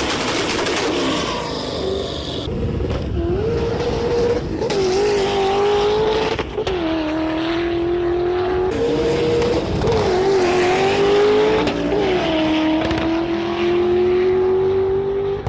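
Audi 4.2-litre V8 in a swapped Volkswagen Beetle accelerating hard through the gears. The engine note climbs and drops back sharply at each shift, several times over.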